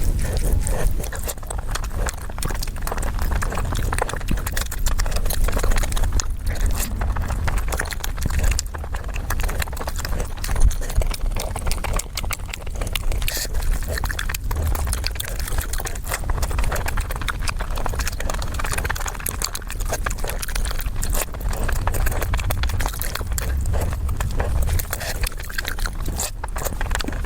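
Close-miked eating sounds: a dense, continuous run of crunching and smacking clicks as food is chewed.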